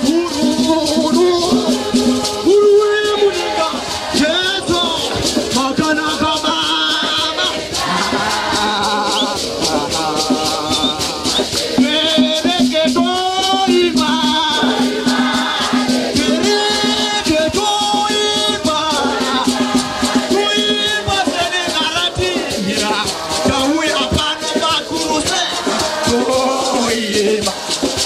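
Church congregation singing a lively gospel song, several voices together, over a fast, steady rattling beat from a shaken rattle.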